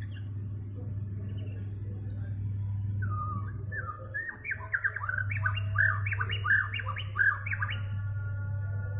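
Bornean white-rumped shama (murai batu) singing: a fast run of sharp, rising whistled notes starting about three seconds in and stopping near the end, over a steady low hum.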